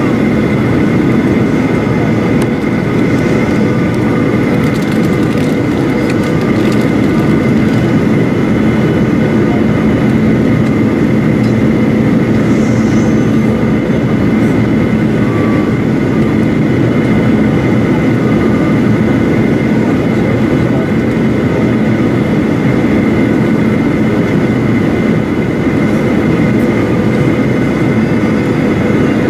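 Cabin noise of a Boeing 737-800 on approach, heard from a window seat over the wing: its CFM56-7B turbofan engines and the rushing airflow make a steady rushing hum with a few held whining tones.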